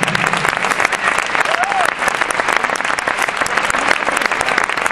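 Crowd applauding, a dense patter of many hand claps, with a single short shout about one and a half seconds in.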